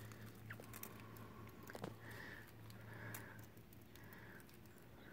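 Faint dripping and trickling of water draining from the tilted boiler of a Jensen Model 70 live-steam engine onto dry leaves and soil, a few soft ticks over a low steady hum.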